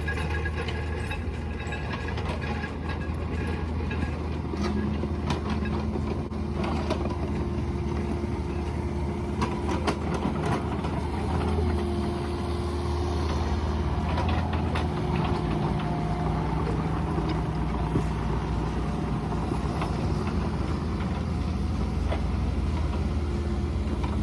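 Mini excavator's diesel engine running steadily, with hydraulic tones that shift pitch every few seconds as the machine works, and scattered clicks and knocks.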